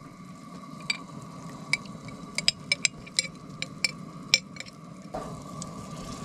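Ground beef sizzling in a pan in taco seasoning, water and salsa while a utensil stirs it. The utensil clicks and scrapes against the pan about a dozen times in the first four and a half seconds.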